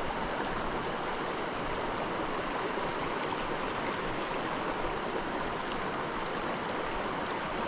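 A small mountain creek running over stones, a steady rush of flowing water.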